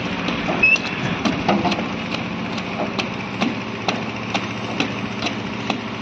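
An engine running steadily on a construction site, likely driving the concrete mixer or hoist for a slab pour. Sharp clicks sound over it at a regular beat, about two a second.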